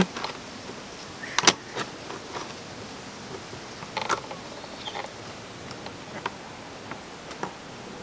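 Pliers clicking and knocking against a spring hose clip and the plastic parts of a dishwasher's sump as the clip is worked into place: a handful of separate clicks, the sharpest about one and a half seconds in, over a steady faint hiss.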